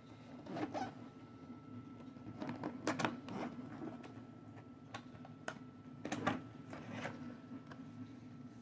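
White cardboard box being handled and opened by hand: a string of short scrapes and clicks as the tuck flap slides out and the lid is lifted, over a faint steady hum.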